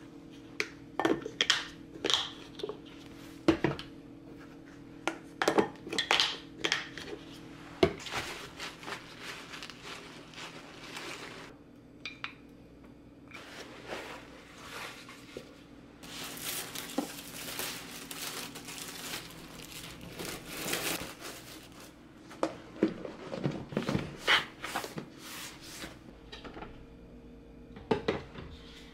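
Hands handling food and storage containers: crinkling and rustling of plastic or wrap, with clicks and knocks of containers being picked up and set down. The rustling is densest for several seconds past the middle.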